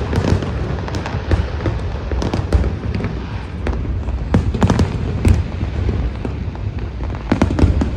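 Fireworks display: many bangs and crackles going off in quick, irregular succession over a constant low rumble.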